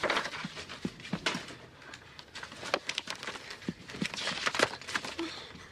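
Someone rummaging through a wooden box on a bedside table: irregular small knocks and clicks with rustling.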